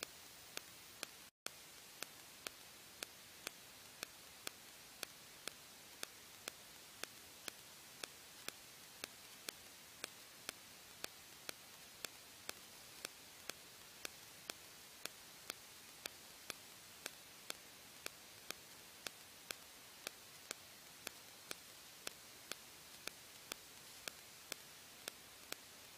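Faint steady hiss with a sharp, evenly spaced tick about twice a second, broken by a brief dropout a little over a second in.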